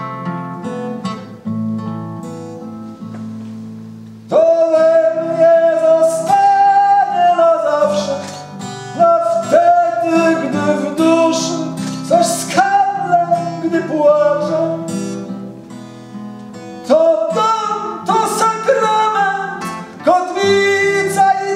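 A man singing with his own acoustic guitar. A chord rings alone for about four seconds, then a strummed chord and a male voice melody come in together, with another strong strum and vocal phrase about three-quarters of the way through.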